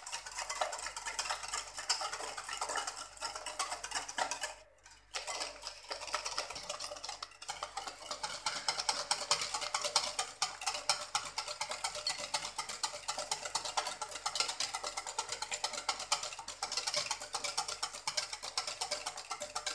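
Wire balloon whisk beating eggs, sugar and oil in a glass bowl by hand: a fast, steady rattle of the wires against the glass, stopping for a moment about five seconds in.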